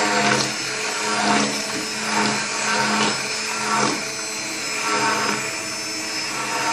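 Handheld immersion (stick) blender running steadily in a glass bowl of thin cake batter, its motor hum swelling and easing about once a second as it is worked through the batter.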